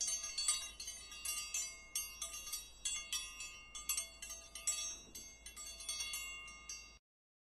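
Tinkling chimes: many bright ringing tones struck in quick, irregular succession, cutting off suddenly near the end.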